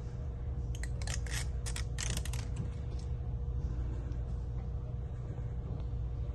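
A quick run of small clicks and scratches starting about a second in and lasting under two seconds, from small phone parts and tools being handled during a smartphone repair, over a steady low hum.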